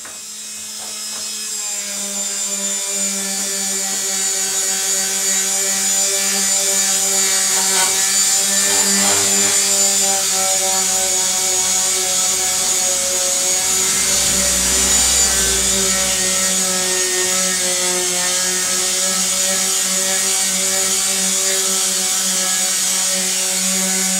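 Electric palm sander running with an abrasive scrubbing pad stuck to it, scuffing paint off a body panel: a steady motor hum under a scratchy rubbing hiss. It builds up over the first few seconds, then holds steady.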